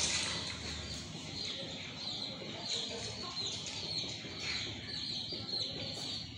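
Chickens in a pen: soft clucking under a steady run of short, high chirps.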